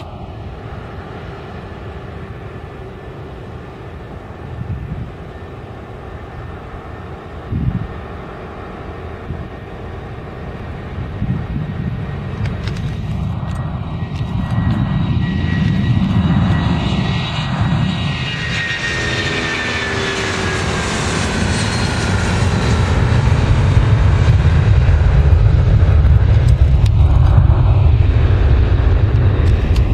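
Boeing 757-300 airliner's jet engines at takeoff thrust as it rolls down the runway, passes and climbs away: a high whine that falls in pitch as it goes by, then a deep rumble that grows loudest toward the end. A brief thump about seven and a half seconds in.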